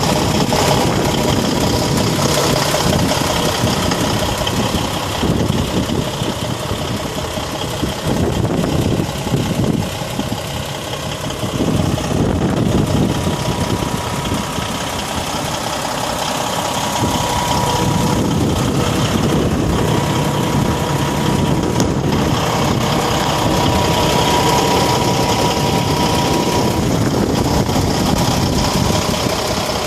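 Kenworth T880 heavy truck's diesel engine running steadily at idle.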